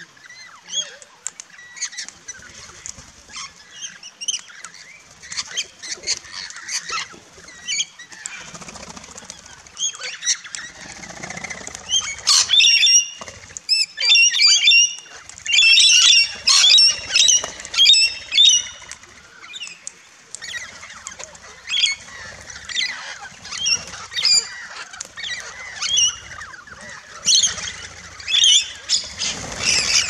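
Mixed flock of Australian parrots (rainbow lorikeets, king parrots, crimson rosellas) calling with many short, shrill squawks, densest and loudest about halfway through, with wing flaps as birds fly in and out.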